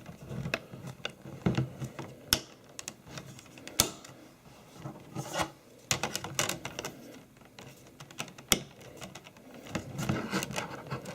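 Scattered sharp plastic clicks and rubbing as a Blu-ray disc is worked off and back onto a tight hub in a book-style case.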